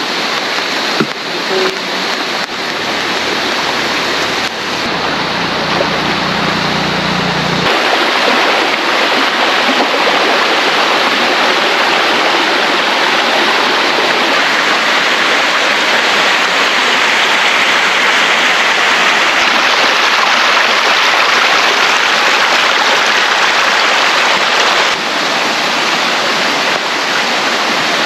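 River water rushing steadily over rocks, a loud, even wash of water noise.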